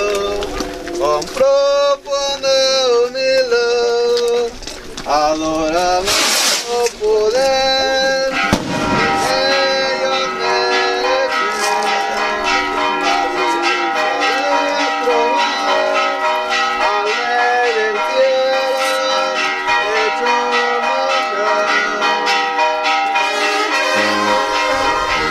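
Brass band music playing a melody with several sustained notes at once, with a brief hissing burst about six seconds in.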